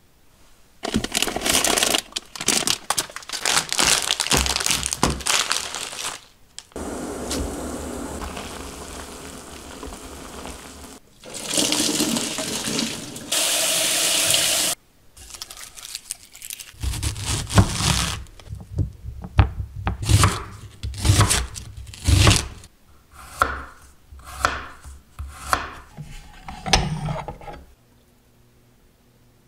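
Tap water running onto ramen noodles in a metal mesh strainer, a steady splashing rush that cuts off suddenly about fifteen seconds in. Before it come rustling and a longer, quieter rush. After it comes a run of sharp knocks and taps, about one a second.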